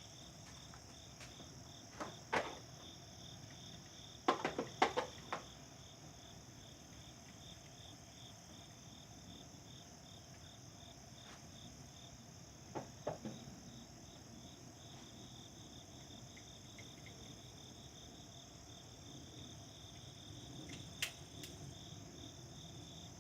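Insects chirping steadily in a high, even drone, with a few short sharp clicks and knocks at scattered moments: a pair a couple of seconds in, a cluster around five seconds, two near the middle and one near the end.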